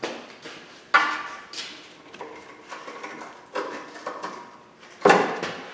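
A pry bar levering rubber exhaust hangers off their hangers on a car's exhaust pipe: a series of about eight metallic clanks, each ringing briefly, the loudest near the end.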